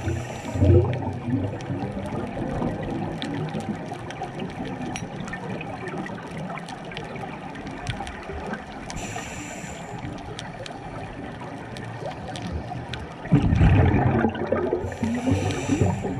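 Scuba diver's regulator breathing heard underwater: a gurgle of exhaled bubbles fading at the start, a hissing inhale a little over halfway through, a loud burst of exhaled bubbles near the end, then another hissing inhale. Faint crackling clicks run underneath.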